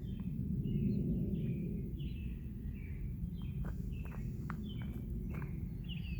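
Birds chirping: short high calls repeating about twice a second, over a steady low rumble.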